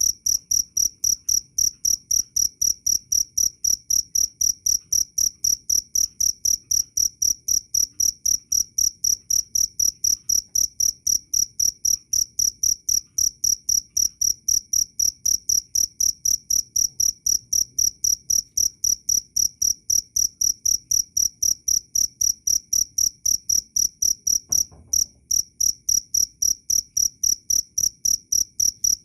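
Cricket (jangkrik) chirping loud and clear, a high, even trill pulsing steadily at about three to four chirps a second. The chirping breaks off briefly about 25 s in, with a faint low thud.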